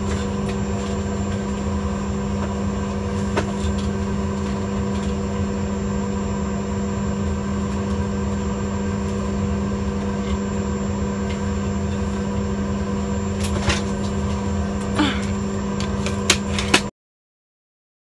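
Steady hum of an airliner cabin, a low drone with a fixed humming tone from the aircraft's ventilation and electrical systems. A few light clicks and knocks come near the end, then the sound cuts off suddenly.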